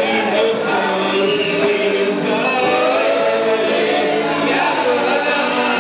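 Church worship team singing a gospel praise song together, several voices in harmony on long held notes.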